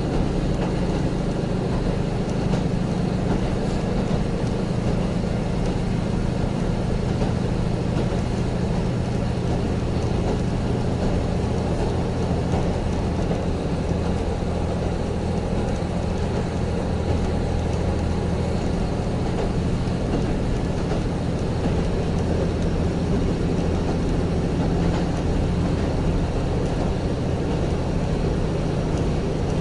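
Steady running noise heard inside a diesel railcar's cabin: a constant low engine drone over the rumble of wheels on the rails.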